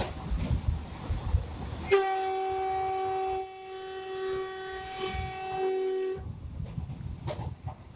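Train 18 (Vande Bharat Express) horn sounding one long steady blast of about four seconds, starting about two seconds in and dipping briefly partway through. It is heard from inside the driver's cab, over the low rumble of the train running at speed.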